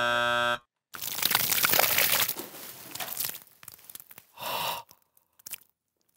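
A short buzzer sting ends about half a second in; then a bucketful of wet, gloppy material is dumped over a man's head, spilling and crackling onto him and the desk for about two seconds. A short breathy vocal sound follows a little later.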